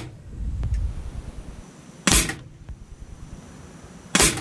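Two shots from an air rifle about two seconds apart, each a sharp crack with a brief ring after it, fired with light plastic peg projectiles of about 3.5 grains.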